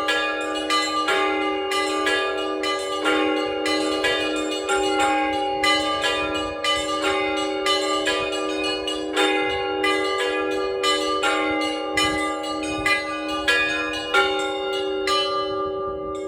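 Orthodox-style cathedral bell chiming by a bell-ringer: quick, rapid strokes on the small bells over the sustained hum of the larger bells. Near the end the strokes stop and the bells ring on, fading.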